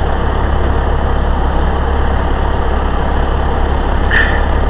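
Steady low rumble and hiss of wind buffeting the microphone, mixed with the engine of an escorting fire vehicle running at walking pace. A brief higher sound comes about four seconds in.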